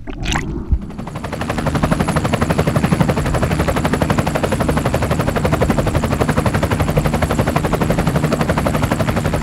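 Edited-in outro audio: a sudden hit and whoosh, then a fast, even pulsing of about six beats a second that carries on steadily.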